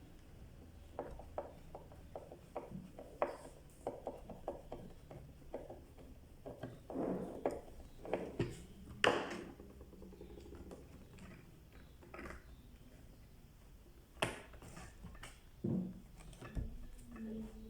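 Irregular clicks, taps and knocks of hard parts being handled, as an electric iron is worked on by hand, busiest in the middle with a couple of single louder knocks later on.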